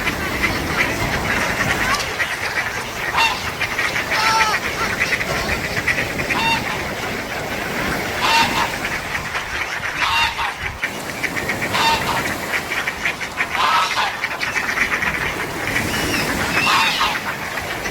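Gulls calling repeatedly, a short call every one to two seconds, over the steady wash of surf on the beach.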